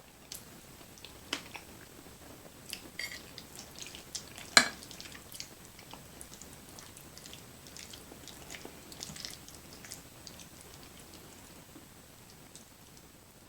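Close-up eating sounds of creamy fettuccine alfredo: wet chewing and mouth smacks with scattered clicks, and one sharp click about four and a half seconds in.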